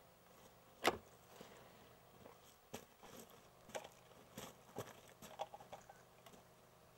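Faint, irregular clicks and knocks of plastic juggling clubs being thrown and caught in the hands, with one sharper click about a second in.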